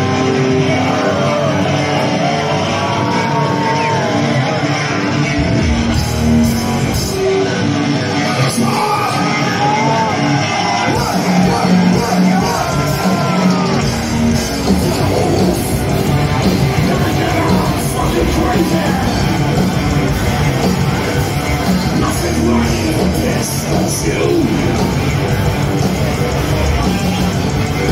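Heavy metal band playing live: distorted electric guitars and drums at full volume, with harsh shouted vocals, heard from within the crowd.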